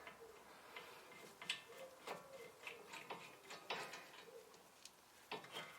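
Faint, scattered clicks and light knocks of metal brake hardware being handled and shifted on the hub: a few small ticks about once or twice a second, with a louder clink near the end.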